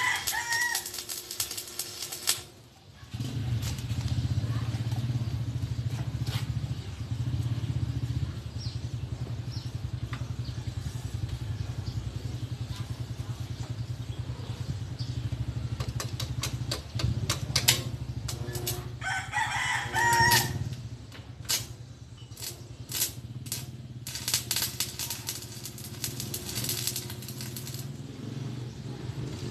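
A rooster crows twice, near the start and again about two-thirds through. Under it runs the steady low hum of arc welding, with sharp crackles later on.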